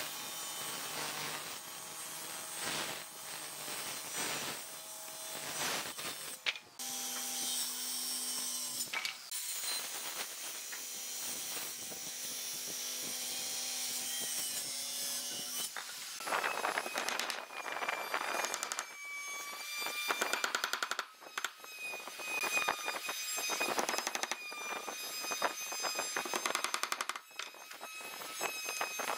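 Maktec MT583 handheld circular saw running and ripping along a rough live-edge board, its tone shifting as the cut goes. Later comes a long stretch of fast, uneven clicking and scraping.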